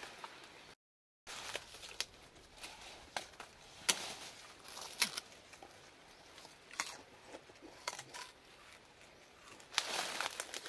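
Sugarcane being peeled and eaten raw: sharp snaps and tearing sounds as the hard rind is stripped off a few times, then crunching as the peeled cane is bitten near the end.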